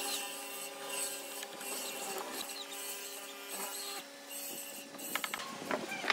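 Benchtop hollow-chisel mortiser running, its square chisel boring mortises into a wooden beam. The steady motor hum stops about four seconds in, followed by a few sharp clicks and knocks.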